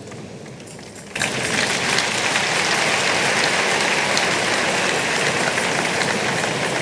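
A large audience clapping: applause breaks out suddenly about a second in and then holds steady.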